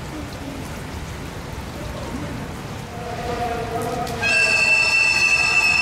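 Train noise at a station: a steady rushing noise, then a loud sustained pitched tone with many overtones that starts abruptly about four seconds in.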